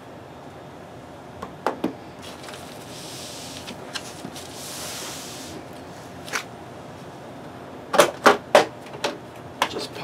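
Back cover of a Dell OptiPlex 9020 all-in-one being worked loose by hand: a few scattered clicks and a short rubbing sound, then a quick run of about five loud snaps near the end as the cover's clips pop free.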